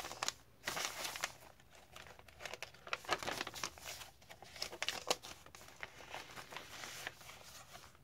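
Paper pages and card inserts of a handmade junk journal being turned and handled: irregular paper rustling and crinkling with many short crackles.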